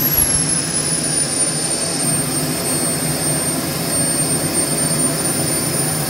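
KingTech K-80 model jet turbine running, its high whine dropping in pitch over the first two seconds or so as it slows, then holding steady as it settles at idle.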